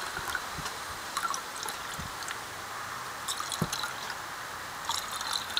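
Champagne being poured from the bottle into flutes: a steady pouring and fizzing, with small ticks scattered through it.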